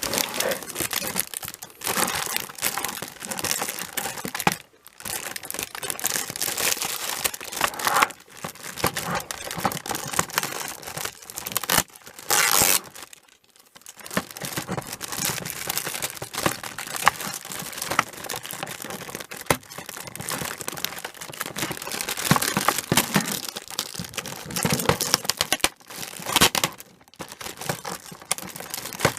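Packaging of a Plarail level-crossing toy set being handled and opened: irregular crinkling and rustling with many small clicks, pausing briefly twice.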